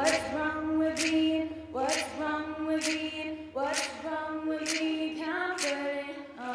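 A cappella group singing a quieter passage: voices hold chords without bass, each new chord struck about once a second with a sharp percussive hit.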